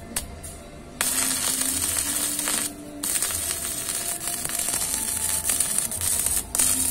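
Electric arc welding: a loud crackling hiss that starts sharply about a second in, breaks off briefly near the middle, and stops near the end.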